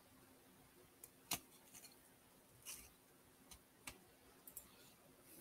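Faint, scattered clicks of a computer mouse over near silence, about eight in all, the loudest about a second in.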